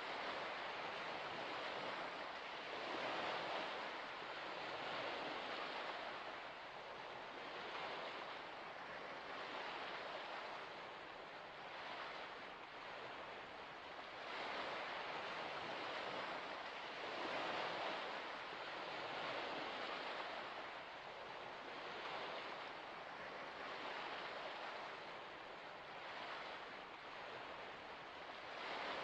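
Gentle waves washing on a shore: a soft, steady hiss of water that swells and eases every two to three seconds.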